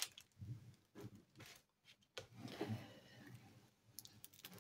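Faint scraping and rubbing of a plastic scraper pushed across a diamond-painting canvas's plastic cover film, pressing out its creases, with a few small clicks.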